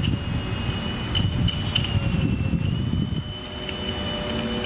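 High, steady whine of a homemade RC racing boat's small electric motors running at speed, over a low rumbling noise.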